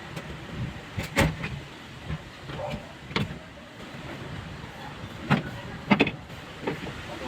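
A handful of sharp clicks and knocks, the loudest pair about five to six seconds in, from parts and tools being handled during work on a car with its engine off.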